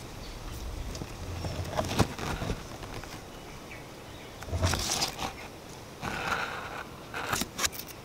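Wind gusting through bamboo leaves, rustling in several short bursts, the strongest about halfway through and near the end, with a low wind rumble on the microphone in the first couple of seconds. Faint bird chirps sit behind it.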